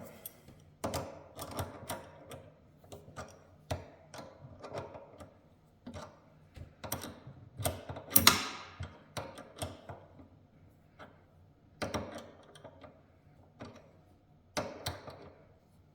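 Spanner tightening the nut on an inverter's cable terminal stud: a run of irregular sharp metallic clicks and ticks, with one louder clink with a brief ring about eight seconds in. The nut is firming up as it is locked down.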